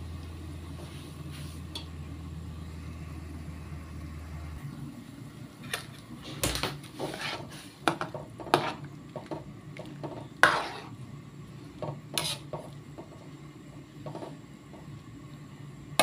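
A metal spoon stirring chicken pieces in water in an aluminium pot, clinking and knocking against the pot's rim and sides a dozen or more times. A steady low hum runs at the start and cuts off after about four seconds.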